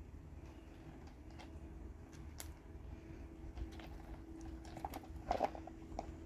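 Pebbles clicking and shifting under two kittens as they scuffle and pounce, scattered light clicks with a louder cluster about five seconds in, over a steady low hum.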